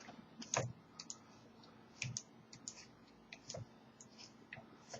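Faint, irregular light clicks of a screwdriver and metal parts as the trigger block screw of a Weihrauch HW97 air rifle is screwed home.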